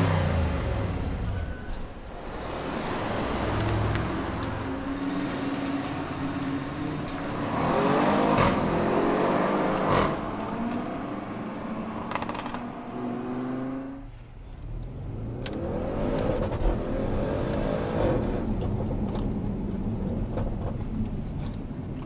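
Audi RS6 C7 Performance's twin-turbo 4.0 V8 accelerating in several pulls, its engine note climbing in pitch and falling away between them.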